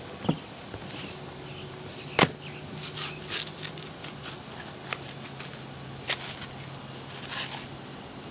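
Footsteps and handling of asphalt shingles on a shingled roof: scattered knocks and brief scrapes, with one sharp knock about two seconds in. A faint steady low hum sounds in the background for most of it.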